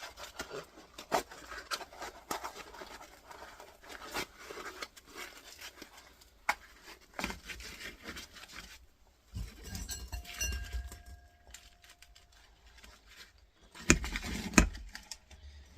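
Workshop handling noise as a piece of cardboard is fetched and laid down: scattered clicks, knocks and rustling, a brief squeak about ten seconds in, and a few heavy thumps near the end.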